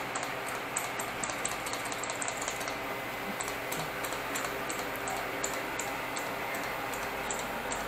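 Felting needle repeatedly stabbing through wool into a foam block: quick light ticks about four or five a second, thinning out after about three seconds.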